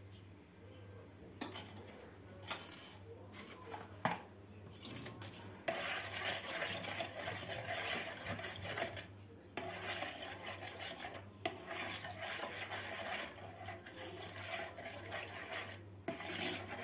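Metal spoon stirring yeast, salt and sugar into lukewarm water in a plastic bowl, scraping and clinking against its sides to dissolve the yeast. A few separate clicks come first, then steady stirring from about six seconds in, with a couple of brief pauses.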